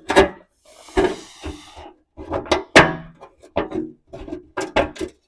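Metal clinks and knocks from an exhaust hanger bracket and its bolts being handled and fitted under a vehicle, some strikes ringing briefly, with a short scraping rustle about a second in.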